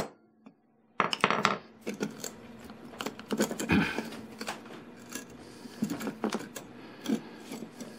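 Irregular metallic clicks, taps and rattles of locking pliers and a clamping jig being handled, with the steel wire rope rubbing as it is pulled and adjusted through the ferrule.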